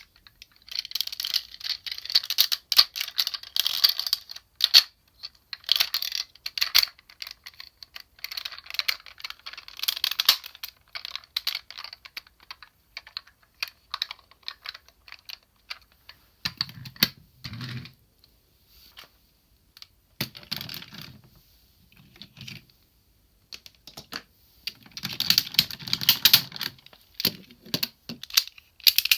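Hard plastic toy parts clicking and rattling as a DX Sirender toy is handled and transformed, in busy bursts of quick clicks with short pauses, and some duller knocks in the second half.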